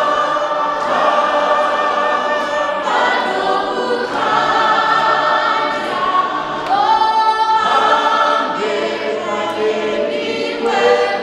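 Church congregation singing a hymn together, many voices in one sustained song, with a loud held note a little past halfway.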